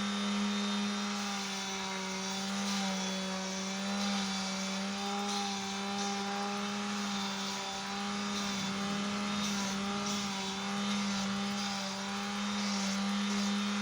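Electric power sander with a 60-grit abrasive running steadily, its motor humming at one constant pitch, with the rough hiss of wood being sanded rising and falling as the piece is worked against it.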